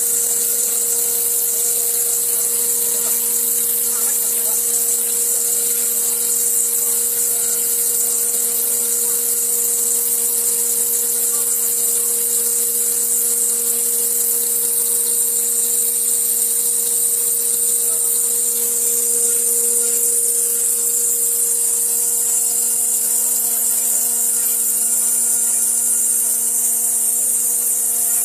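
Stone-cutting CNC router spindle running steadily as it cuts a groove in a granite slab under a water-coolant jet: an even high-pitched motor whine with a steady hiss over it.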